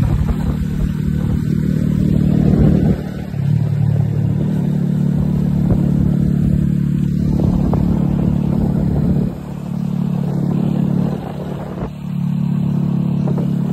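Venom motorcycle engine running under way, its pitch dropping about three seconds in, then rising again, with further dips and steps near nine and twelve seconds.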